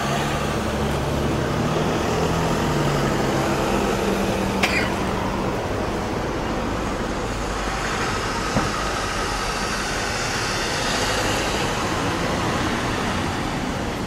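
Town street traffic: a car's engine hums as it drives past close by in the first few seconds, then steady road noise from passing cars. Two short sharp clicks come about four and a half and eight and a half seconds in.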